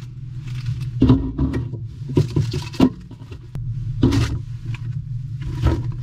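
Inside a moving camper van: a steady low engine and road drone, with irregular swishes and knocks from the cabin several times.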